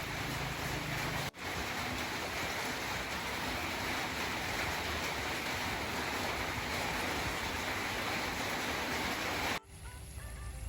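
Steady rushing water noise, with a brief dropout just over a second in. About a second before the end it cuts off suddenly and quiet music begins.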